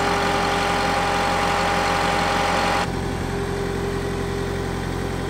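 A motor running steadily, with a hum of several even, unchanging tones. About three seconds in the sound shifts abruptly and a little quieter, and its highest steady tone drops out.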